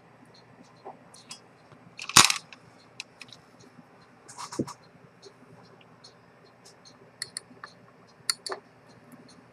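Small metal clicks, taps and scrapes from a watchmaker's tools handling a Rolex 6694 watch movement. A sharp clack comes about two seconds in and another about four and a half seconds in, with scattered lighter ticks after.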